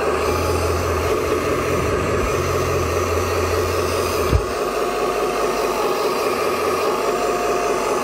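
Hydraulic pump of a 1:12 remote-control hydraulic excavator running steadily, its low hum coming and going as the boom and bucket move under load. A single sharp click a little over four seconds in.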